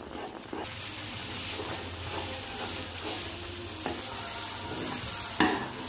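Thick carrot halwa sizzling in a hot pan while a metal spoon stirs and scrapes through it. The sizzle comes up about half a second in, and there is one sharp knock of the spoon near the end.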